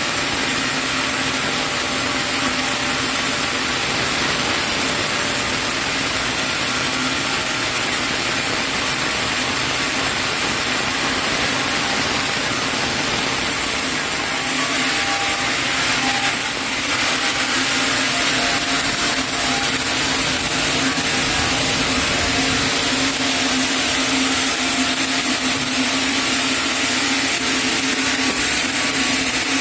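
Sawmill band saw running and cutting lengthwise through a chinaberry log: a steady loud machine noise with a strong high hiss, its sound shifting briefly about 16 seconds in.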